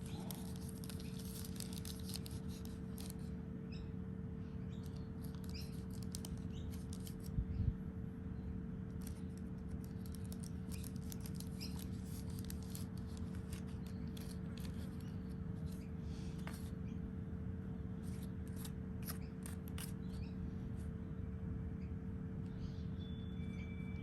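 Soft scattered clicks and crisp rustles of hands handling seeds and potting mix in a seedling tray, with one low thump about seven seconds in, over a steady low hum.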